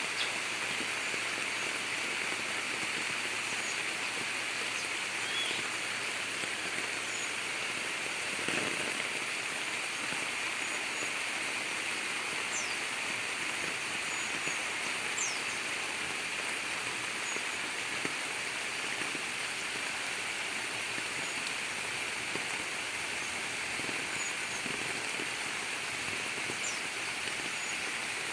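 Heavy rain falling steadily, with rainwater running, and faint short bird chirps now and then high above it.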